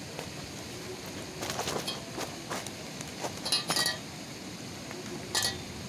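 Irregular sharp clinks and clicks in small clusters, the loudest about halfway through and a last one near the end, over a steady background hiss.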